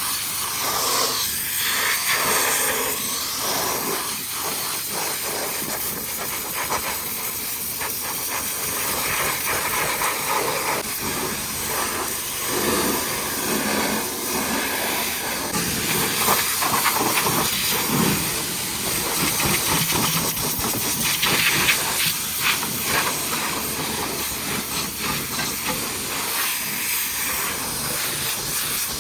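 High-pressure washer spraying water onto a truck: a loud, steady hiss whose tone keeps shifting as the jet moves across different surfaces.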